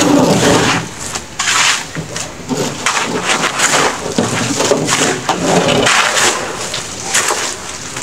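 Steel shovels scraping and crunching into gravel in irregular, repeated strokes.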